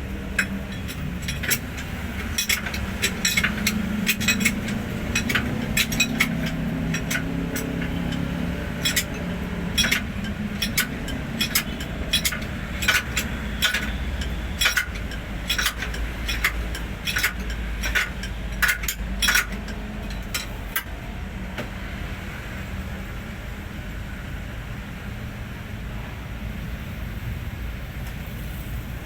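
Irregular sharp metallic clinks and taps, like hand tools knocking on metal, over a steady low rumble; the clinks stop about two-thirds of the way through.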